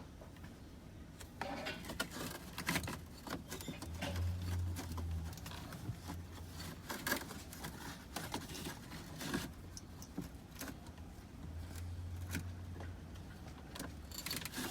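Hands working under a car's dashboard: scattered clicks, knocks and rustling of plastic trim and wiring as a connector is reached. A low hum comes and goes twice.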